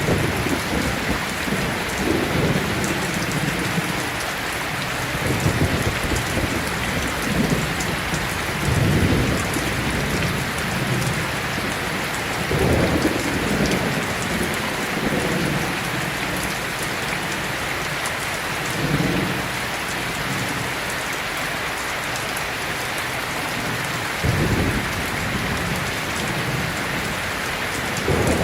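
Steady rain falling, a dense even hiss, with short low rumbles rising out of it every few seconds.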